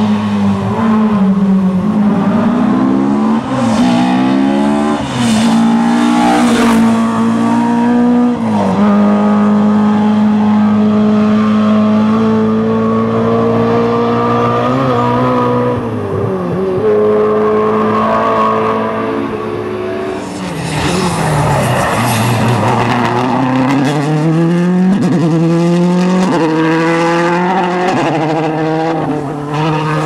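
Rally car engines at full throttle, revving up through the gears with a sharp drop in pitch at each change and a long held high note through the middle. There is a burst of rushing noise about twenty-one seconds in, then another car climbs quickly through its gears near the end.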